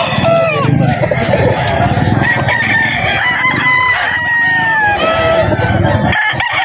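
Several gamefowl roosters crowing one after another, long crows overlapping at different pitches, each falling slightly in pitch at the end.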